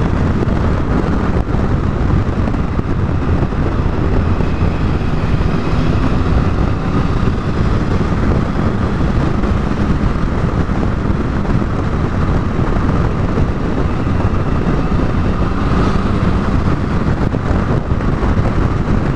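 Triumph Tiger 1050's three-cylinder engine running steadily under way, mixed with loud wind rush over the microphone.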